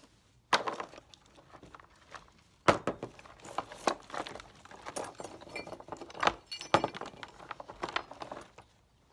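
Small pieces of scrap metal clinking and clattering as they are handled and sorted, with a run of sharp clanks and knocks, the loudest about half a second in and again around three and seven seconds in.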